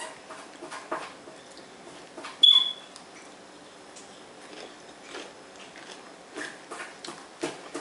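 Close-up chewing and crunching of lettuce-wrapped tacos, with soft mouth clicks throughout. A brief, sharp, high-pitched squeal comes about two and a half seconds in and is the loudest sound.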